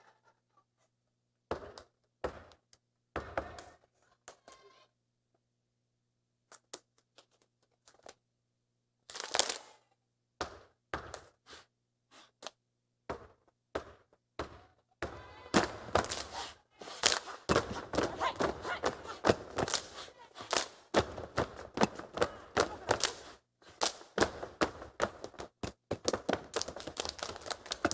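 A step team stepping on a wooden stage: a few scattered stomps and claps at first, then from about halfway a fast, continuous rhythm of foot stomps and hand claps.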